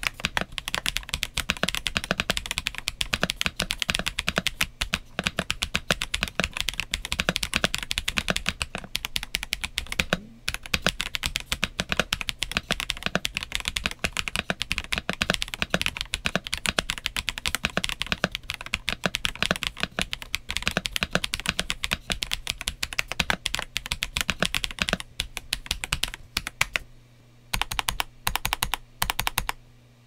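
Continuous fast typing on a Kzzi K75 Pro mechanical keyboard with Kzzi Momentary linear switches and PBT OEM-profile keycaps: a dense, unbroken run of keystroke clacks. There is a brief pause about ten seconds in, and near the end the typing breaks into shorter, separate bursts.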